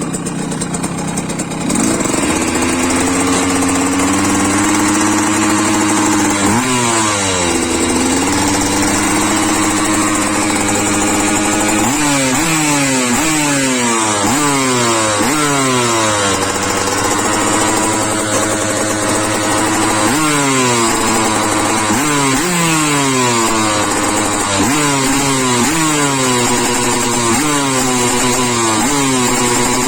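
KTM 125 motorcycle engine running. It grows louder about two seconds in and holds a steady note, then is revved in repeated throttle blips, each pitch rising sharply and falling back, coming in quick succession through the second half.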